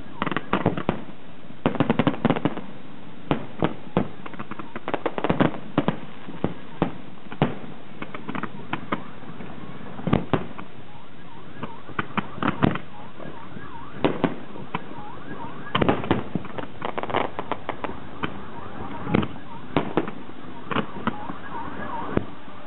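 Aerial fireworks display going off in irregular volleys of sharp bangs and pops, bunched into dense flurries with quieter gaps between, the thickest flurry about two-thirds of the way through.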